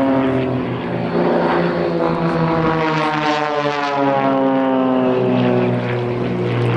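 Two XtremeAir XA41 aerobatic planes in flight, their propeller engines running together in a steady drone whose pitch slowly falls.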